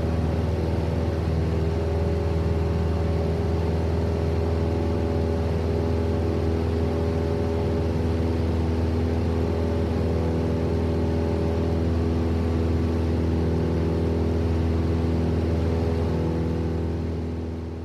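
Single-engine propeller Cessna heard from inside the cabin in flight: a steady engine and propeller drone at constant power, fading out near the end.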